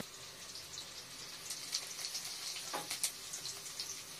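Cumin seeds frying in hot oil in a steel kadai: a faint, steady sizzle with scattered small pops and crackles.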